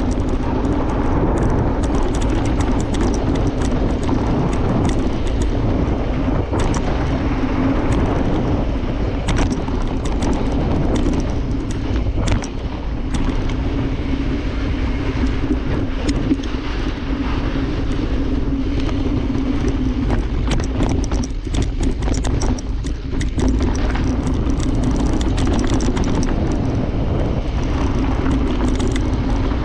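Mountain bike riding fast down a dirt trail: steady rush of wind on the microphone and tyre noise, with frequent clicks and rattles as the bike hits bumps and rocks.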